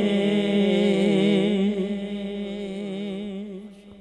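Unaccompanied devotional singing of a Punjabi naat fading out: a voice holding and wavering on the last note over a steady low drone, dying away by the end.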